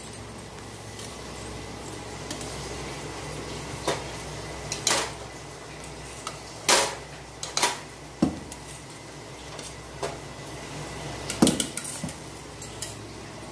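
Steel spoon clinking against a steel bowl and a metal kadai while ghee is spooned into the pan: about eight separate clinks, irregularly spaced, over a faint steady hum.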